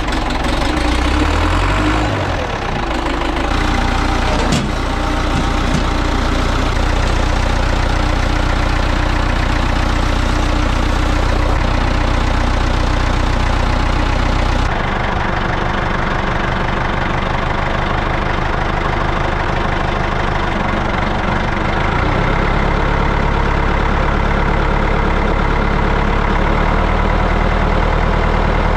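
Ford 5600 tractor's three-cylinder diesel engine running at idle shortly after starting. Its speed picks up over the first couple of seconds, then it settles into a steady idle.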